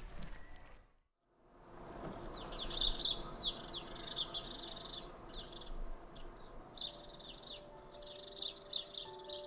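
House sparrows chirping, many quick overlapping chirps, starting after a brief drop to silence about a second in. Soft sustained music notes come in under the chirping in the last few seconds.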